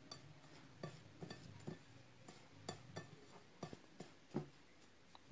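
Fingers mixing dry milk powder, semolina and flour by hand in a china bowl: faint, irregular taps and clinks as the fingertips knock the bowl, with a soft rub of the powder.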